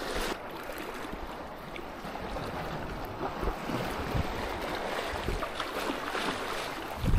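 Steady rush of strong wind buffeting the microphone, with uneven low rumbles from the gusts.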